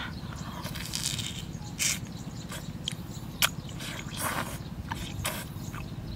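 Close-up eating sounds of a man biting and sucking roasted fish off a stalk: short slurps and lip smacks, with sharp mouth clicks at irregular moments.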